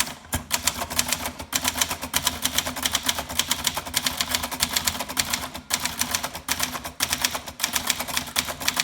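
Brother-built Signature 440T portable manual typewriter (JP1 model, plastic body) being typed on quickly: a rapid, even run of key strikes, several a second.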